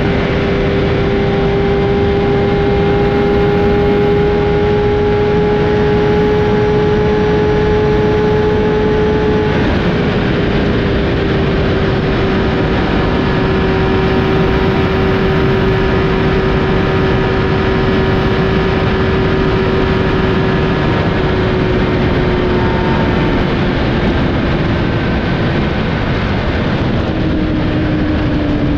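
Kawasaki 1000 inline-four sport bike engine in sixth gear near 12,000 rpm at close to 280 km/h, heard from onboard under heavy wind rush. The steady high engine note holds, then sags gradually and falls more noticeably near the end as the revs drop toward 9,000.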